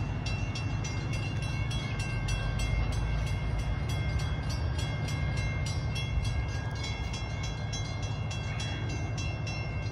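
Railroad grade-crossing bell ringing in quick, even dings, about four a second, over a steady low rumble: the crossing warning that a train is approaching.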